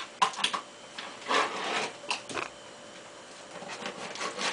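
Metal mesh bug screen being pressed and worked into a window frame's channel: a few short scratchy rustles and clicks, then quick repeated rubbing strokes starting near the end.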